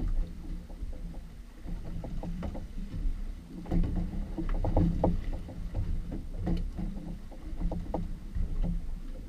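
Fishing boat at sea: a steady low rumble, with water slapping against the hull and scattered knocks and clicks, thickest in the middle.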